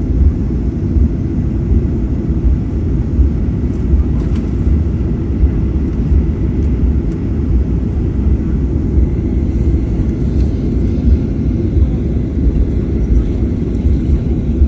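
Steady low rumble of a Boeing 737-800's CFM56 turbofan engines and airflow, heard inside the passenger cabin, with a faint steady whine above it.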